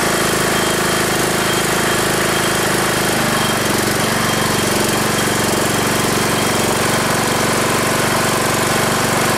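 17.5 HP, 502cc Briggs & Stratton engine on a Troy-Bilt riding tractor running steadily on a cold start, its note shifting slightly about three seconds in.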